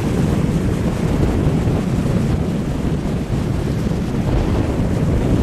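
Strong wind buffeting the microphone over breaking surf and waves washing up the beach: a steady low rumble with a hiss of surf.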